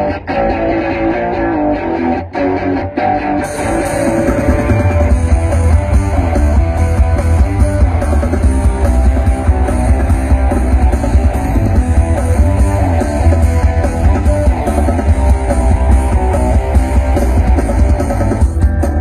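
Loud rock music with electric guitar and heavy, booming bass, played through an outdoor-cinema PA of open-front 'butterfly' horn speaker cabinets. About three and a half seconds in the sound turns brighter as the treble comes up.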